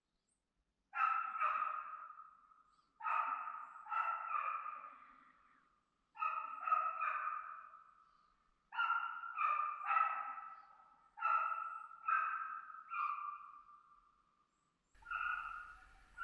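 Gotlandsstövare hound baying as it drives a hare: bursts of two or three barks every two seconds or so, each trailing off in a long echo.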